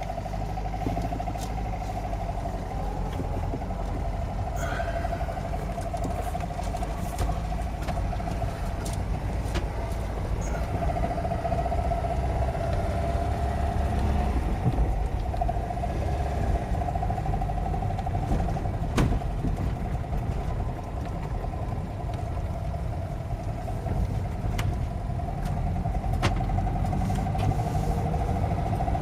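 1989 Talbot Express 2-litre petrol engine running under load on the move, heard from inside the cab, with a steady whine over the rumble. The owner is showing a metallic, hollow knock from the engine that he finds worst under gentle acceleration.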